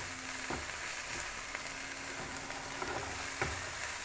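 Sliced okra, ivy gourd and onion sizzling in coconut oil in a nonstick frying pan as they are stirred with a spatula, with a few soft knocks of the spatula against the pan.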